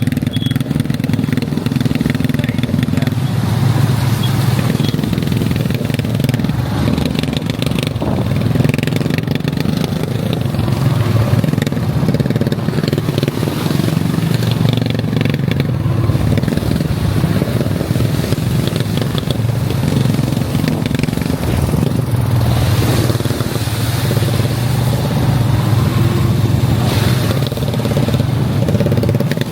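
ATV engine running steadily while riding, its drone shifting a little in pitch and level.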